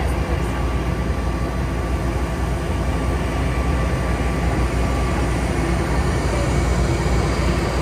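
Pushback tug's engine running steadily under load while pushing an Airbus A321 airliner back, heard from inside the tug's open cab as a constant low rumble with a faint steady high whine above it.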